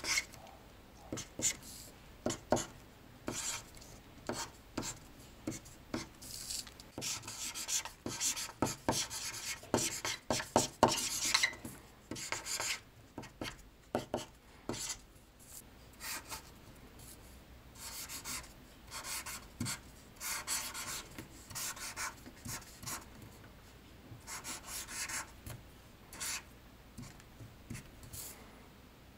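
Irregular scratching and rubbing strokes of something drawn across a surface, busiest from about seven to twelve seconds in.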